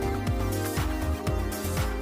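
Background music with a steady kick-drum beat, about two beats a second, and no singing.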